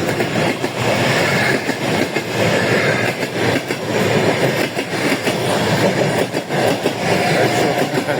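A train running past on its rails, a steady loud noise throughout, with a short high tone near the end.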